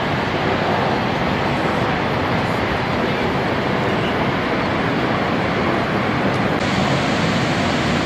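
Niagara Falls' water pouring down, a loud, steady, dense rushing noise with no let-up; it grows a little brighter and hissier about two-thirds of the way through.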